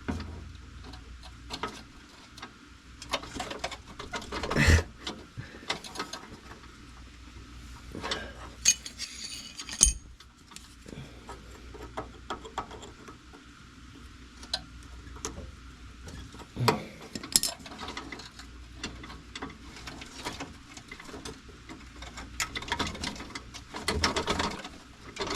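Scattered clicks, taps and knocks of small metal parts and hand tools being handled while working a heater cable into its fitting, with a few louder knocks spread through.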